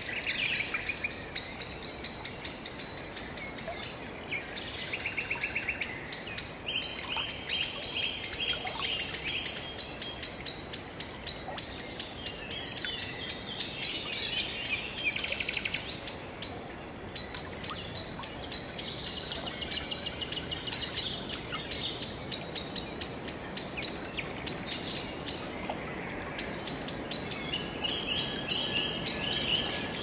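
Birds chirping and calling, with fast, high trills that break off and start again every few seconds.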